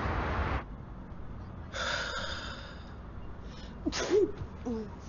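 A person building up to a sneeze: a breathy, gasping intake of breath, then a short, loud voiced sneeze about four seconds in.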